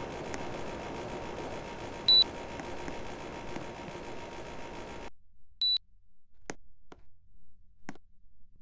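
Air conditioner giving two short high beeps, the kind a unit makes on taking a remote-control command, over a steady running hum that cuts off abruptly about five seconds in; a few sharp clicks follow in the near quiet.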